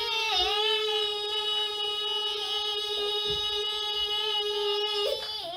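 A child's voice holding one long sung note, steady in pitch, with a small dip near the start; it falls away about five seconds in.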